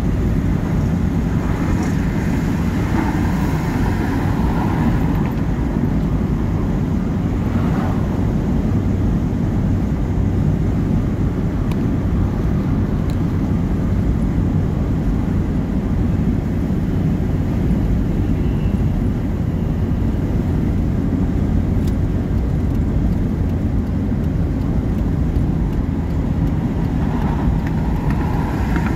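Steady road noise heard inside a moving car at highway speed: engine and tyres running on a wet road.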